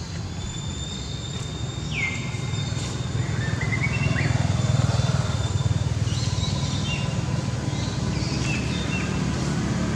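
Outdoor ambience: a steady low rumble with a few high bird chirps and whistles, one gliding down in pitch about two seconds in.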